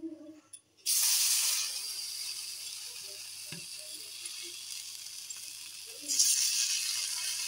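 Besan-battered potato pieces sizzling in hot oil on a flat tawa. A loud sizzle starts suddenly about a second in as a piece goes into the oil and settles to a steady sizzle. A second, louder burst of sizzling comes about six seconds in as another piece is added.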